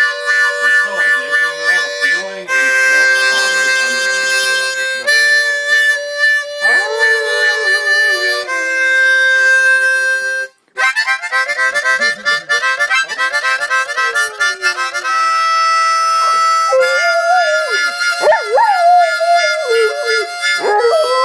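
Harmonica playing sustained chords, changing every couple of seconds with one short break midway, while a dog howls along in long wavering glides, most of all in the second half.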